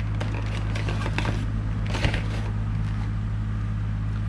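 Rustling and light clicks of lure packets being handled, with a sharp click about two seconds in, over a steady low hum.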